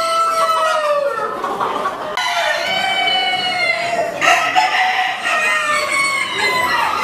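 Bantam cockerels crowing, several long drawn-out crows following and overlapping one another, with hens clucking underneath.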